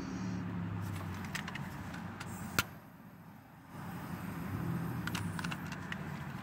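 A tobacco pipe being lit with a lighter inside a car cabin: one sharp lighter click about two and a half seconds in, with small clicks and handling rattles around it.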